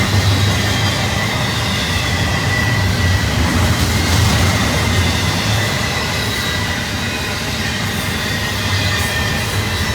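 Union Pacific intermodal freight train rolling past: a steady low rumble of wheels on rail, with a thin high wheel squeal running over it.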